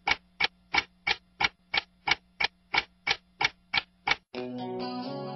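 Steady ticking, about three ticks a second over a faint low hum, stopping about four seconds in as guitar music starts.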